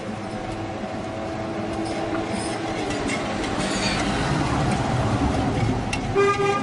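Street traffic: a motor vehicle passing, its noise growing louder over several seconds, then a vehicle horn sounding near the end.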